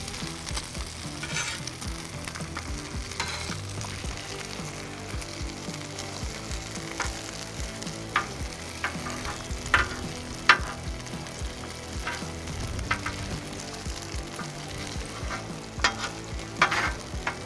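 Homemade bacon and hash browns sizzling steadily on a Blackstone flat-top griddle, with a few sharp taps and scrapes of a metal utensil on the griddle top.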